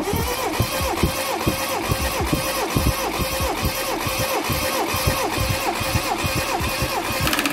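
Honda Civic Nouva engine turned over on its starter motor without firing, for a compression test on cylinder 1: an even, rhythmic cranking of about four pulses a second, with a whine that dips on each pulse, starting and stopping abruptly.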